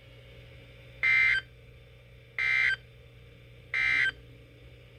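Emergency Alert System end-of-message data tones: three short bursts of warbling digital noise, about a third of a second each and evenly spaced, marking the end of the severe thunderstorm warning broadcast.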